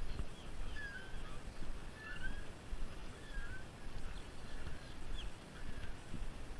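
Short bird chirps, a few of them spaced about a second apart, over an uneven low rumble of wind on the microphone.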